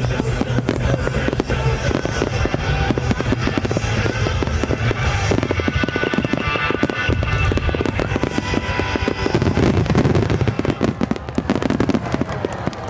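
Fireworks going off in a dense barrage of rapid bangs and crackling, with music playing underneath.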